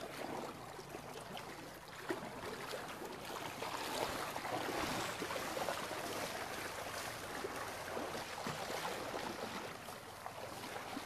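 Shallow river water splashing and running around elephants' legs as they wade through it, an uneven wash of small splashes.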